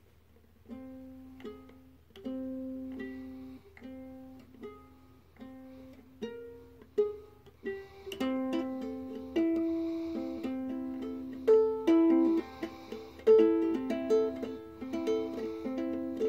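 Ukulele being plucked: a slow line of single notes starting about a second in, growing busier and louder, with two notes sounding together, from about halfway.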